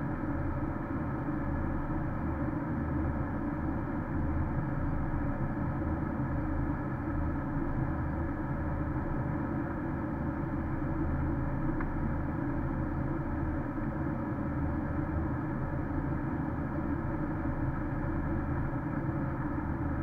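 Steady road and engine noise inside the cabin of a Porsche Cayenne S cruising on a snow-covered highway: a constant low rumble of tyres and engine with no changes.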